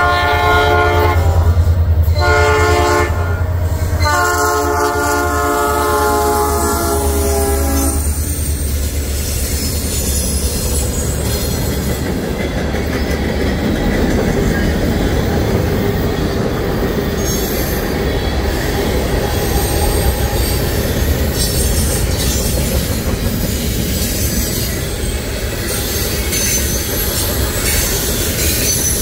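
Norfolk Southern SD40-2 freight locomotive's horn blowing for a grade crossing: a long blast that breaks off about two seconds in, a short blast, then a long one that stops about eight seconds in. After it, the deep rumble of the four SD40-2s' EMD two-stroke diesels passing and the steady clickety-clack of freight and tank cars rolling by, with some wheel squeal.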